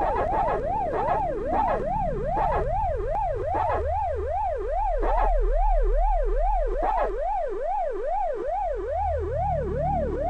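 Pac-Man's "waka waka" dot-eating sound effect: an electronic tone that glides up and down, repeating about three times a second, over a low rumble.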